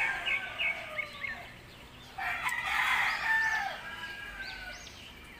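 A rooster crowing once, a long call starting about two seconds in, with short high chirps around it.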